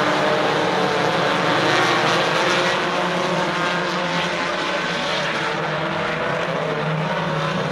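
Dirt-track race cars running laps as a pack, their engines overlapping in a steady, dense drone that fades slightly toward the end.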